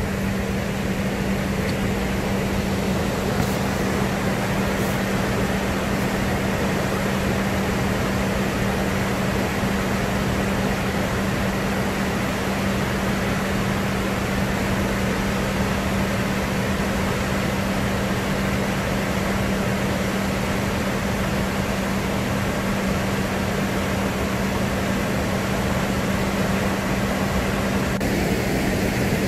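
A steady, even rushing noise with a constant low hum underneath, unchanging throughout.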